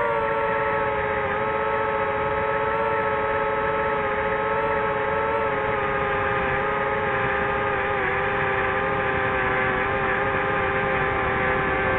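DJI FPV quadcopter's motors and propellers whining steadily in flight, the pitch wavering slightly as the throttle changes.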